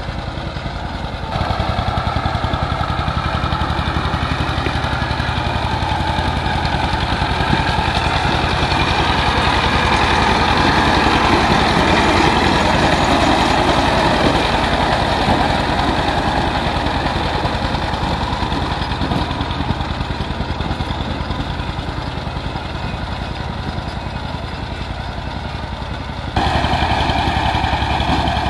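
Dongfeng 12 hp power tiller's single-cylinder diesel engine running steadily under load while its rotary tiller churns dry soil. It gets louder about a second in, swells in the middle, and jumps up again near the end.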